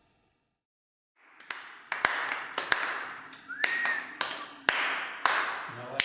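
Silence, then from about a second in a run of sharp hits, irregular and roughly two a second, each trailing off in a hiss; a short rising-and-falling whistle-like tone sounds about midway.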